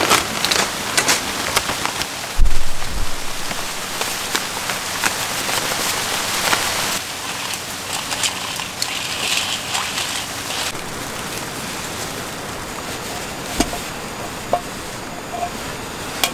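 Rain falling steadily on a tent, with scattered drips and clicks and one heavy thud about two and a half seconds in. Later, clams clicking against each other as they are rinsed by hand in a metal bowl of water.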